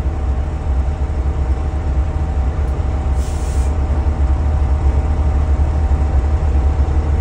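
Cummins diesel engine of a JLG 1255 telehandler idling steadily. A brief hiss comes about three seconds in.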